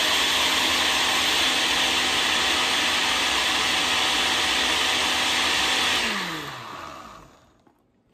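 Countertop blender running at speed, pureeing spinach, celery and lime with no water added. About six seconds in it is switched off and the motor winds down to a stop, its pitch falling.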